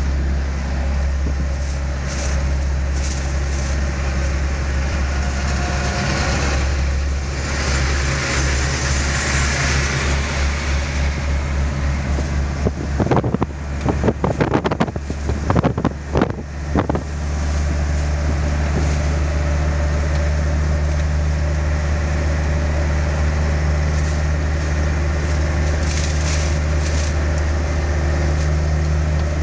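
Steady drone of a vehicle's engine and road noise heard from inside the cab at highway speed, with a low hum throughout. From about 13 to 17 seconds in, a run of loud, irregular knocks and rattles cuts through.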